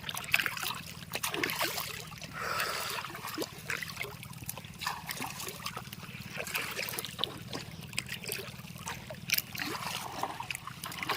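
Water trickling and splashing, with scattered short knocks and clicks, over a steady low hum.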